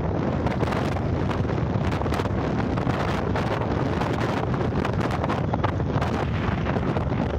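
Strong wind buffeting the microphone: a steady, dense rumble that flutters constantly.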